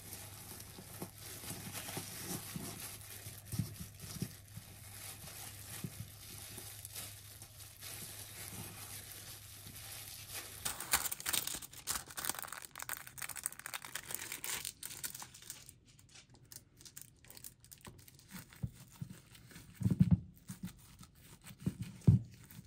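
Crinkling, rustling handling sounds with many small clicks; about halfway through they thin out to scattered clicks, with two dull thumps near the end.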